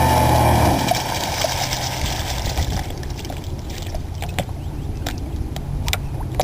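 Twin Zenoah two-stroke gasoline engines of an RC catamaran running loud, then cutting off abruptly about a second in. A low rumbling water noise follows, with a few scattered clicks in the last few seconds.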